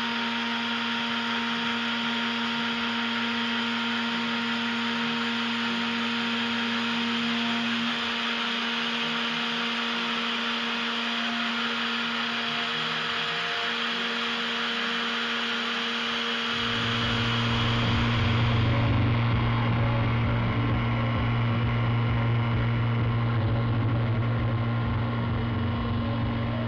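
CNC milling machine cutting an aluminium waterblock backplate: the spindle runs with a steady whine and the end mill gives a continuous gritty cutting noise. About two-thirds of the way through, a deep hum comes in and the machine sound gets louder.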